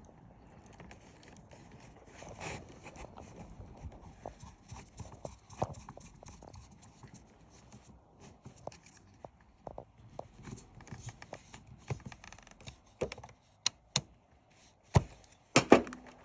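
Handling noise from wiring a speaker crossover: scattered small clicks, taps and rustles, with a few sharper knocks near the end.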